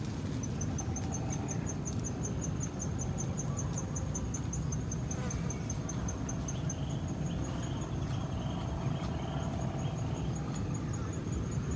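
Insect chirping: a high, thin pulse repeated about five times a second. It starts just after the beginning and grows fainter in the second half, over a steady low rumble.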